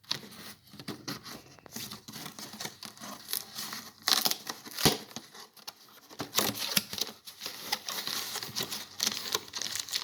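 Packaging being torn open and crinkled by hand while a tool order is unboxed: an irregular run of rustling and crackling, with one sharp click about halfway through.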